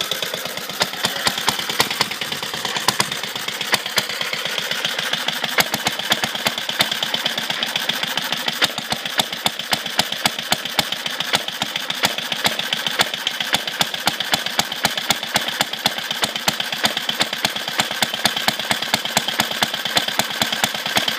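A restored early Briggs & Stratton air-cooled overhead-valve engine running steadily at idle. Its firing beats come in a quick, even rhythm throughout.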